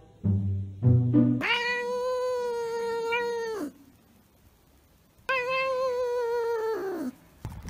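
A few low musical notes at the start, then two long, drawn-out cat meows, each held at one pitch for about two seconds before dropping away, with a short pause between them.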